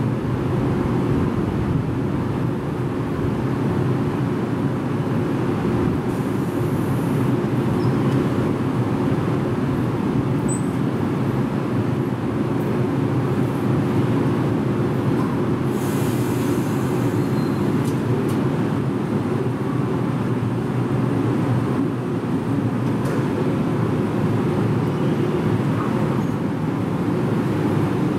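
A stationary 113 series electric train gives off a steady, even hum from its onboard equipment, with no change in pitch or loudness.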